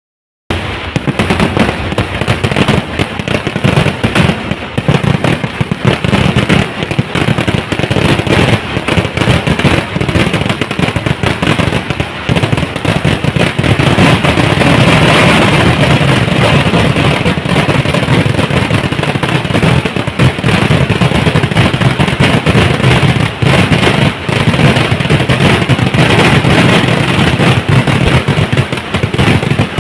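Kerala festival fireworks (vedikettu) going off in a dense, unbroken barrage of rapid, loud bursts and cracker explosions. It starts abruptly about half a second in.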